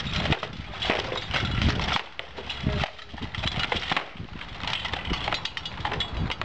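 Practice swords clashing in sparring: a run of sharp, irregular knocks and clatter.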